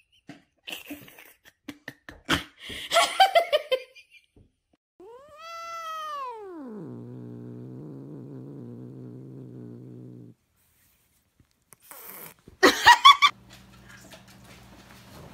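Domestic cats calling: a short run of chirp-like calls about three seconds in, then one long meow that rises and falls into a low, steady growl for about three seconds before stopping abruptly, and near the end a quick series of loud kitten mews.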